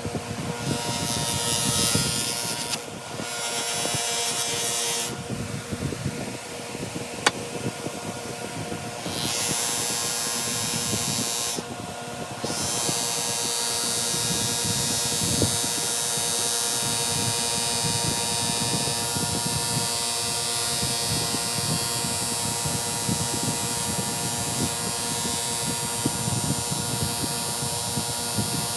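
Small electric rotary power tool running steadily, with a scratchy grinding hiss from the tool working the metal that breaks off briefly a few times, then holds steady after about twelve seconds.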